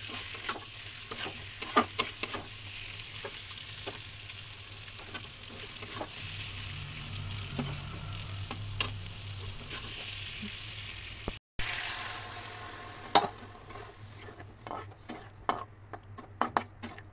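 Paneer cubes and green peas frying and sizzling in a kadai while a spatula stirs and scrapes against the pan with frequent sharp clicks. The sound cuts out for a moment about two-thirds through, then the spatula clicks go on over a fainter sizzle.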